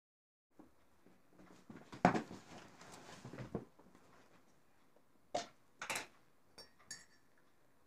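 Rustling and knocking as things are moved about, with one loud knock about two seconds in, then a few sharp clicks and clinks as a small glass jar is handled.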